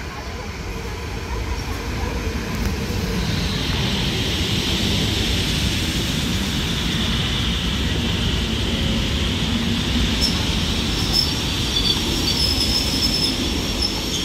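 EN57-type electric multiple unit pulling into the platform: a steady rumble of wheels on rail that grows louder over the first few seconds. A high wheel-and-brake squeal comes in a few seconds in and holds, with sharper, higher squeals joining near the end as the train slows.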